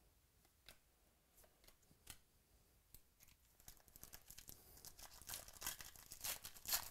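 A few light clicks of trading cards being handled, then a foil trading-card pack being torn open, the wrapper crinkling more and more loudly over the second half.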